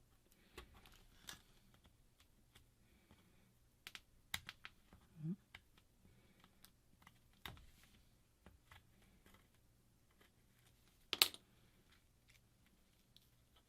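Scattered light clicks and taps of small hand tools working on a smartphone's frame during a screen repair, with the sharpest click about eleven seconds in and a short rising squeak about five seconds in.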